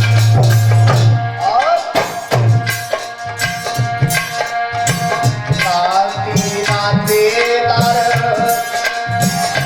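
Instrumental interlude of a folk devotional song: tabla beating a steady rhythm under a sustained melody line that bends in pitch partway through.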